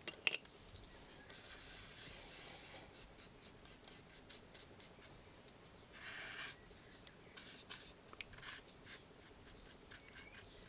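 Soft rubbing and scratching strokes of paint being worked onto a doll's body. There are two sharp clicks right at the start and a louder rub about six seconds in.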